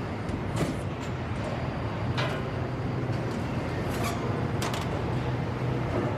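Steady low machine hum of an industrial plant with a few sharp metallic clanks, about four in six seconds.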